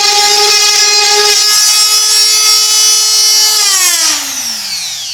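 Electric wood router running with a loud, steady high whine, then switched off about three and a half seconds in, its pitch falling as the motor spins down.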